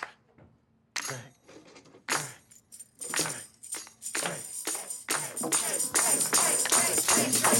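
A tambourine starting up, struck about once a second and then quickly building into a busier jingling rhythm. Pitched instruments join in near the end.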